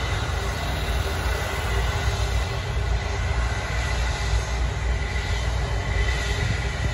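Jet engines of an Air China twin-engine widebody airliner running with a steady low rumble as it rolls out along the runway after landing, with a faint high engine whine.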